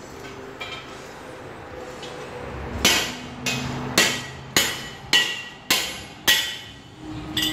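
Hand hammer striking steel, eight blows about two a second starting about three seconds in, each ringing briefly.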